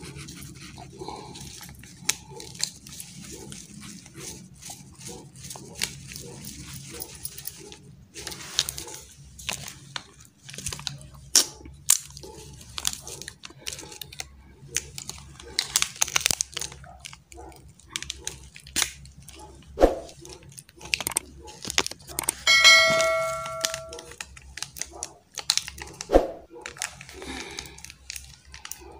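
Plastic instant-noodle seasoning sachets being torn open, crinkled and shaken over noodles in a steel bowl, with scattered clicks and taps. About two-thirds of the way through, a steady pitched tone sounds for about a second and a half and is the loudest sound.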